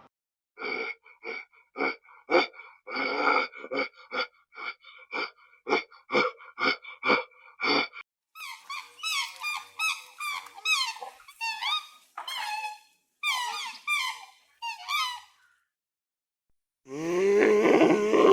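Animal calls. First comes a run of short yelps at a steady pitch, about two or three a second. Then come squeaky calls that slide up and down in pitch, and near the end a louder, lower call.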